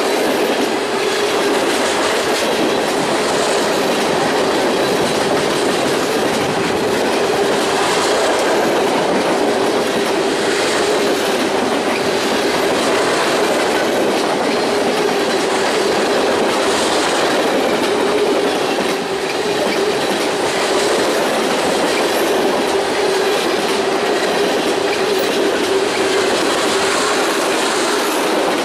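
Long manifest freight train's cars rolling past at speed: a steady rush of steel wheels on rail with a steady hum underneath.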